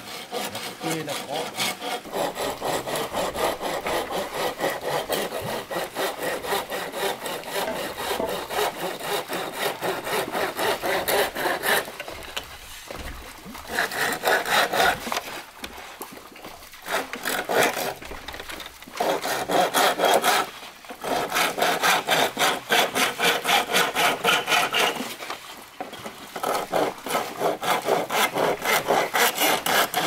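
Hand saw cutting through bamboo with quick, even back-and-forth strokes, in several bouts separated by short pauses.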